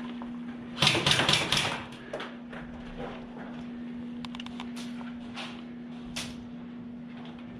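Airsoft guns firing: a rapid, loud burst of shots lasting under a second about a second in, then scattered single shots and clicks, over a steady low hum.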